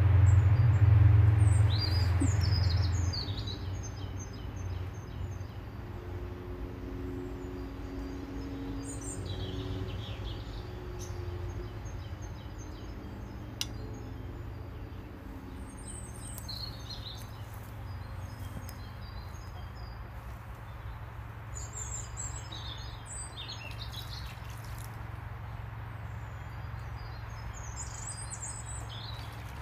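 Small songbirds chirping and singing in short phrases over a steady low rumble, which is loudest in the first few seconds. A single sharp click comes about halfway through.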